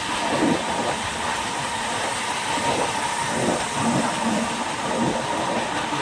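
Jaipur–Pune Superfast Express train running on the rails: a steady rushing and rattling noise with a thin steady tone and irregular low knocks.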